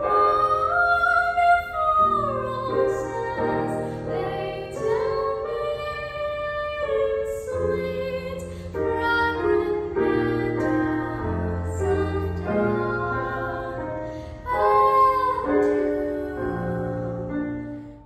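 A woman singing a slow song with long held notes over instrumental backing music.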